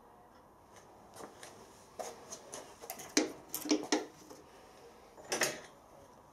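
Light metallic clicks and clinks of hand-handled steel parts: a thrust bearing being worked at on a drill spindle clamped in a vise. A scatter of small sharp taps, the loudest about three to four seconds in and one more near the end.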